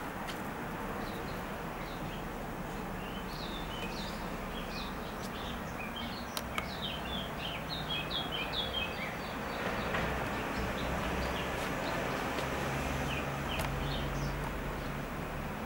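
Small birds chirping in quick runs of short high notes, thickest in the middle, over steady outdoor background noise. A low hum joins for a few seconds near the end, with a few scattered clicks.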